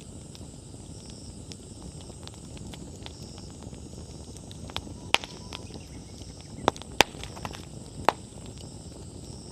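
Wood bonfire burning with a steady low rustle of flame and a scatter of small crackles, and four sharp pops from the burning firewood, the loudest a little past the middle.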